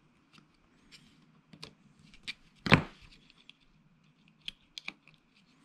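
Small clicks and taps of an HO-scale Life-Like model locomotive's motor, drive shaft and chassis parts being handled and pressed together, with one louder knock a little under three seconds in.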